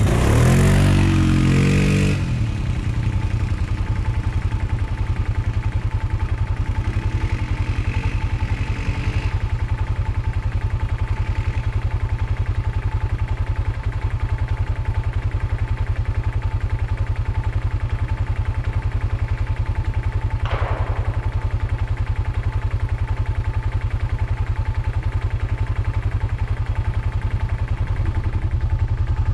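Arctic Cat ATV engine running steadily with a deep rumble, heard from a camera on its front rack; its pitch rises and falls in the first couple of seconds, then it runs evenly. A short clack sounds about twenty seconds in.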